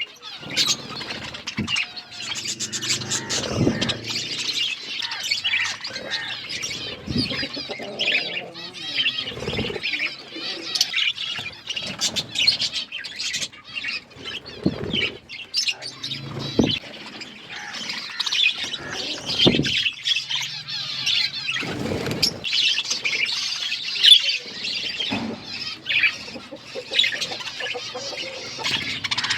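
A flock of budgerigars chirping and chattering continuously in many overlapping calls. Short bursts of wing flapping come every few seconds.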